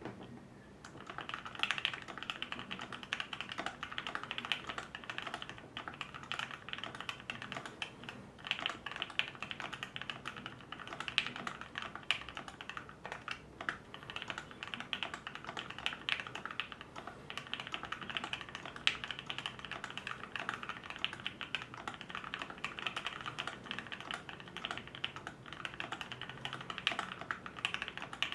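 Savage65 mechanical keyboard with lubed and filmed Pinoko switches, an FR4 plate and PBT keycaps, typed on continuously: a dense run of fast key presses starting about a second in, with a couple of brief lulls.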